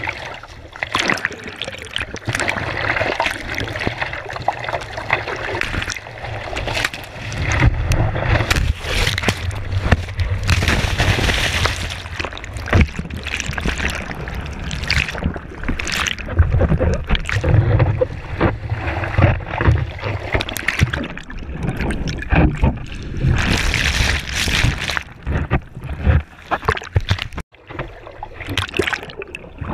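Seawater splashing, sloshing and rushing against a surfboard-mounted camera as a surfer paddles out through the surf, with heavy low rumbling churn and two loud hissing surges of whitewater. About halfway through the camera goes under water briefly and the sound turns duller.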